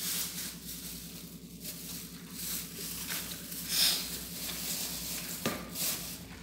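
Plastic bin bag rustling and crinkling in short swishes as it is handled and fitted into a plastic waste bin, the loudest rustle a little under four seconds in and a sharp click about five and a half seconds in, over a steady low hum.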